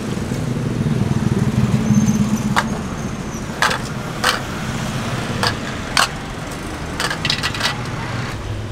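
Aluminium lids of kue putu steamer cups clinking as they are lifted off and set down: about nine sharp metallic clinks, four in quick succession near the end, over a steady low rumble.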